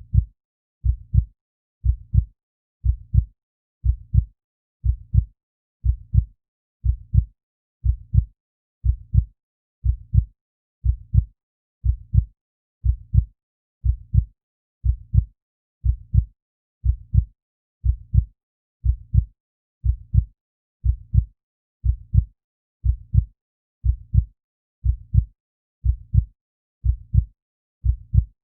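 Heartbeat at a steady resting rate of about one beat a second, each beat a low double thump (lub-dub) with silence between.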